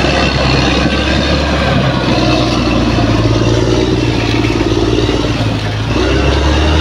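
Bulldozer's diesel engine working steadily, its engine note shifting in pitch about two seconds in and again near the end.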